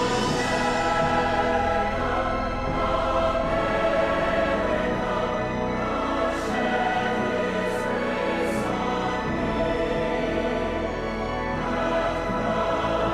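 Background music: a choir singing with orchestral accompaniment, a patriotic song.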